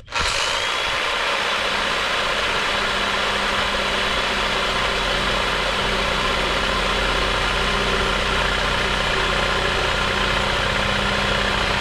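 Sawzall reciprocating saw with a short blade running steadily as it cuts through the RV's plastic black-water drain pipe. It starts abruptly and runs at an even level.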